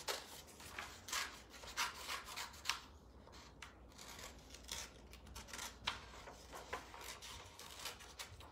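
Scissors cutting through brown paper in a run of short, irregular snips.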